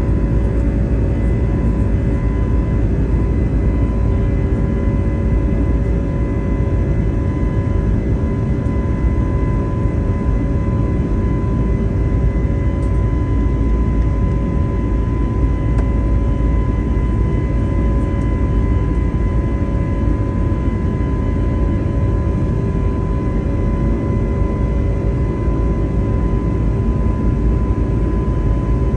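Airbus A320neo jet airliner heard from inside the cabin: a loud, unchanging rumble and rush of engine and airflow noise with a few steady hums and whines held on top.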